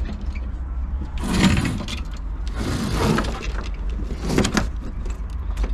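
Sailboat mainsheet traveller car sliding along its metal track as the new control line is hauled through its blocks. Three rattling, clicking runs, about a second and a half apart.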